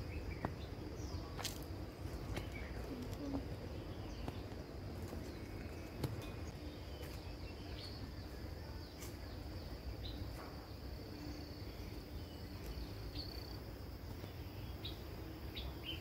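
Woodland ambience: birds chirping now and then over a steady high-pitched hum and a low rumble.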